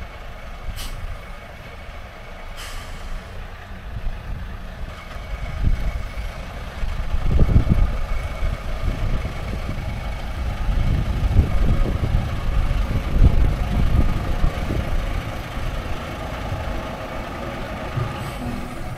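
Engine of a vintage IFA H6 bus running as the bus approaches and drives past. Its rumble grows much louder about seven seconds in, with a steady whine above it, and two short sharp hisses come in the first three seconds.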